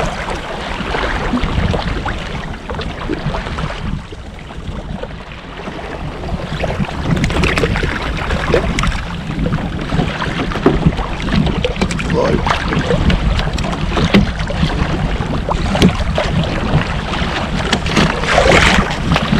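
Wind buffeting the microphone and choppy sea water slapping and splashing against a fishing kayak's hull, with scattered short knocks and splashes from about seven seconds in.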